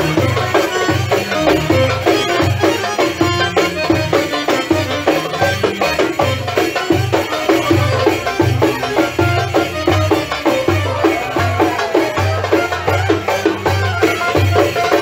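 Middle Eastern folk music playing loud, with a steady drum beat of about two strokes a second under a busy melody.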